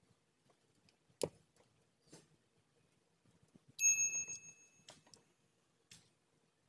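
Metal hand tools being handled on a car floor: a sharp knock about a second in, then a bright metallic clink about four seconds in whose ring dies away within a second.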